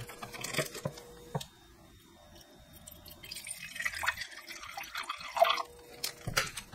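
Distilled water poured from a bottle in a thin stream into a glass beaker on a digital scale, trickling for about three seconds from a little past two seconds in. A few light clicks and knocks of glass and bottle come around it.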